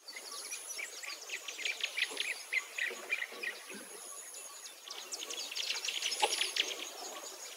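Oat flakes toasting in a small frying pan, crackling and sizzling in a dense run of short ticks that is busiest around five to six seconds in, with a thin high whine coming and going.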